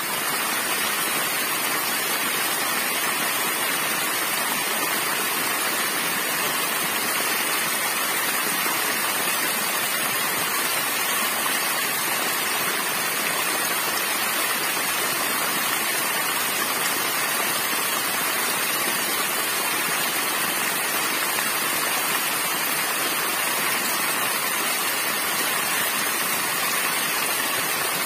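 Small waterfall: thin streams of water falling over a rock face and splashing into a shallow pool, a steady, even rush of water with no let-up.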